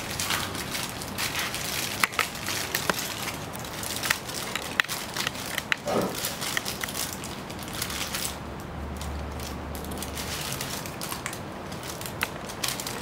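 Aluminium foil crumpled and crimped by hand around a food parcel, crinkling and crackling with many sharp clicks.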